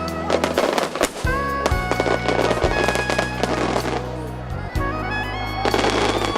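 Fireworks display: repeated sharp bangs and dense crackling of bursting shells, thickest in the first half and again near the end. Music with a steady bass plays underneath.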